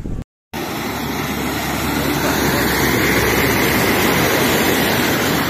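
A car ploughing through deep floodwater, its bow wave surging and splashing in a loud, steady rush that swells in the middle. It starts after a moment of silence just after the start.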